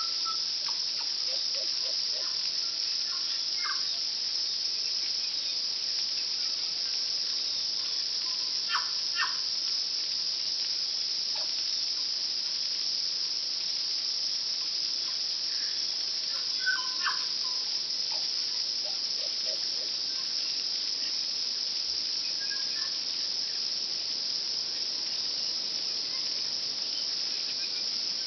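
A steady, high insect chorus runs throughout, with scattered short notes and clicks from a tui. The loudest are sharp double notes about nine seconds in and again around seventeen seconds.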